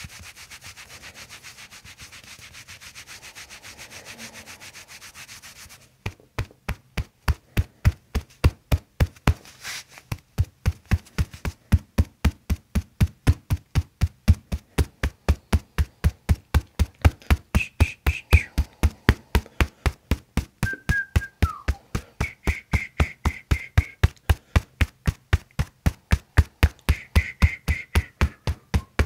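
Hands rubbing briskly over the skin of a back, then from about six seconds in a rapid, even run of hand strikes on the back, several a second, as percussive massage.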